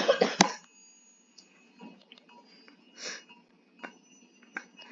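A short breathy vocal sound at the start, then quiet breaths and a few faint clicks.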